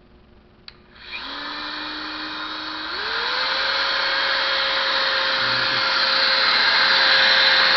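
Metabo WE9-125 Quick angle grinder, freshly fitted with new carbon brushes, switched on for a test run. A click, then the motor starts about a second in, climbs to a higher pitch about three seconds in, and runs on steadily.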